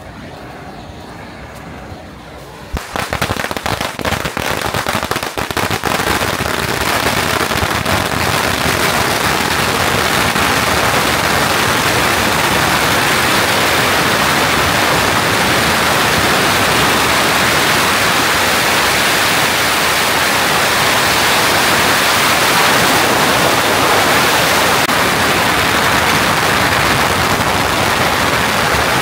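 A long string of firecrackers going off: sharp bangs start suddenly about three seconds in and within a few seconds merge into a dense, continuous crackle that keeps going loudly.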